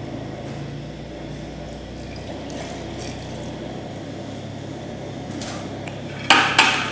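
Home-brewed beer pouring and sloshing from a tipped plastic five-gallon bucket, then two sharp knocks near the end as the bucket is set down on the ground beside another.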